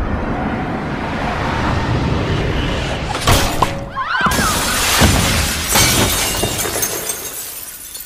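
Glass basketball backboard shattering under a slam dunk: a long crash of breaking glass with several sharp hits, fading near the end as the shards come down.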